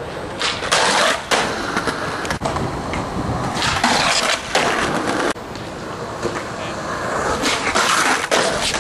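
Skateboard on concrete: wheels rolling, sharp clacks of the board popping and landing, and rough scraping as it grinds along a concrete ledge, the longest scrape about four seconds in.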